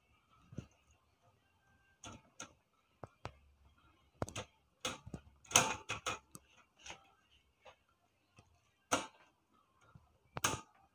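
Wire front safety grille of a V-Guard pedestal fan clicking and knocking as it is pressed onto the fan's rear grille, in irregular sharp clicks that crowd together around the middle and come again twice near the end. The grille is a tight fit.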